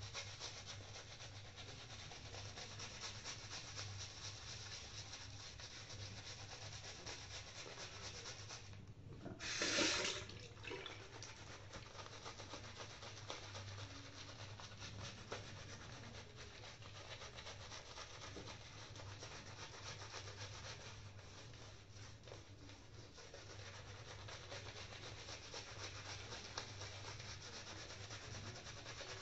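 Shaving brush scrubbing soap lather onto a stubbled face: a faint, steady, fine bristly scratching. About ten seconds in there is a brief louder rush.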